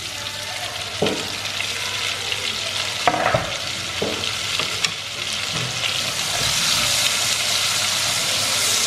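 Diced onion, garlic and carrot sizzling in hot oil in a cast-iron pot, with a few sharp knocks of utensils in the first few seconds. The sizzle grows louder about six seconds in, as the vegetables are stirred with a wooden spatula.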